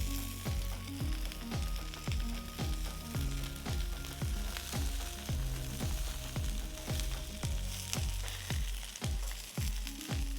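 Bratwurst and potato crowns sizzling on a Blackstone flat-top griddle over high heat, under background music with a steady beat of about two low thumps a second and a bass line.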